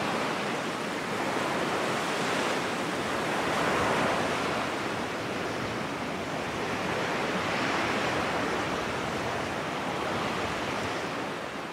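Recorded ocean waves washing in, a steady hiss that swells and eases every few seconds, used as the background bed of a subliminal track.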